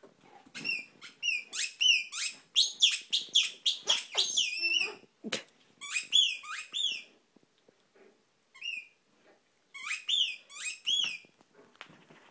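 Dog chewing a squeaky tennis ball, making quick runs of high squeaks that rise and fall in pitch, several a second. A long burst fills the first five seconds, then shorter bursts come with pauses between them, and the squeaking stops about a second before the end.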